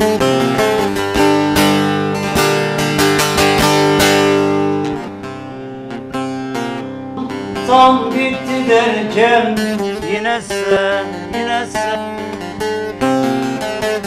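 Bağlama (long-necked Turkish saz) playing a folk melody, with fast, busy picking for about the first five seconds, then a softer stretch before the playing picks up again.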